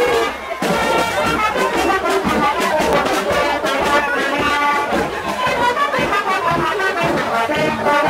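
Marching brass band, with tubas, euphoniums and trumpets, playing a tune together.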